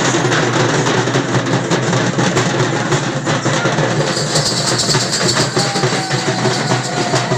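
Frame drums beaten in a fast, steady, continuous clatter, accompanying a ritual dance.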